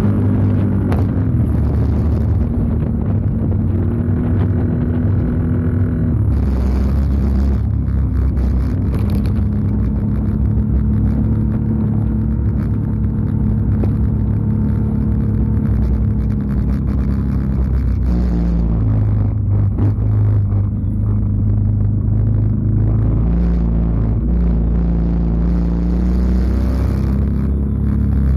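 Can-Am Outlander 650 XMR's V-twin engine running through an aftermarket MBRP muffler while the ATV is ridden along a dirt trail, the engine note rising and falling several times as the throttle changes.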